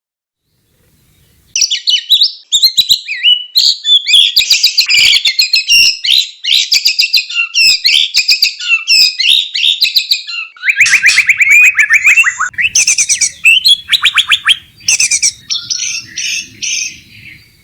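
White-rumped shama (murai batu) singing a fast, varied string of whistles, chatters and rapid trills: a bird in breeding condition calling for a mate. The song starts about a second and a half in, after a near-silent moment.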